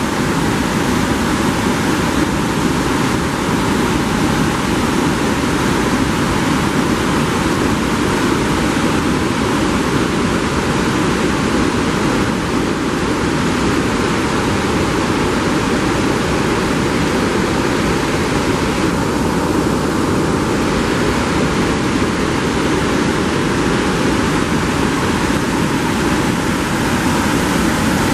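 Whitewater rapids and falls on a brook, water churning over rock ledges: a loud, steady rush of moving water with no let-up.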